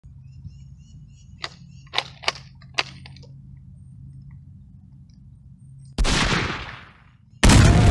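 A few sharp clicks, then about six seconds in a single loud gunshot that dies away over about a second. A second loud burst of noise starts shortly before the end.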